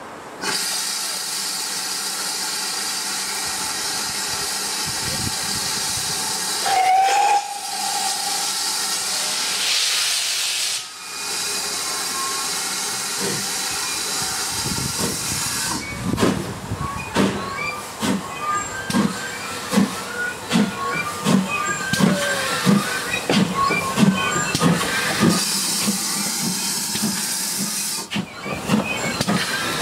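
GWR 4575-class prairie tank steam locomotive 5526 hissing steam, giving one short whistle about seven seconds in. From about halfway it starts away with its cylinder drain cocks open, its exhaust beats coming slightly faster as it gets going.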